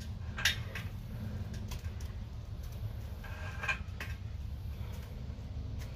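Pull-ups on a bar: a few faint knocks and a short squeak over a steady low hum.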